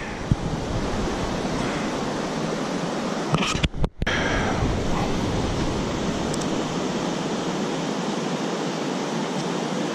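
Steady rush of a shallow stream running over riffles and rocks, with a brief dropout just before four seconds in.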